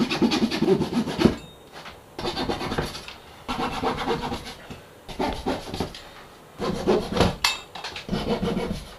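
Veritas flush-cutting hand saw sawing off wooden plugs flush with the surrounding wood, in about six short bursts of quick rasping strokes with brief pauses between them.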